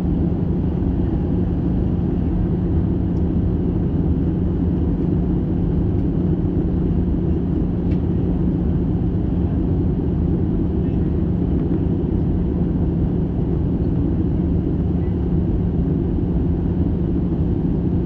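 Jet airliner cabin noise in flight, heard from a window seat beside the underwing engine: a steady, low rush of engine and airflow noise with a constant low hum.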